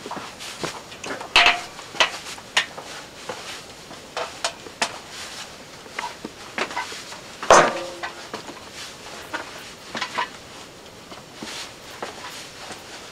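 Footsteps on the wooden plank floor of a narrow timber-shored tunnel: irregular knocks and clatters, the loudest about seven and a half seconds in with a short ringing after it.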